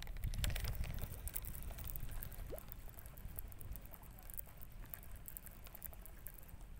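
Wind rumbling on the microphone, louder in the first couple of seconds, with scattered light clicks and rustles of handling noise.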